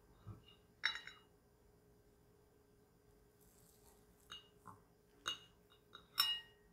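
Stainless fork and knife clinking against a ceramic plate while cutting through soft soufflé pancakes: a scattered run of sharp clinks with a short ring, the loudest about a second in and near the end.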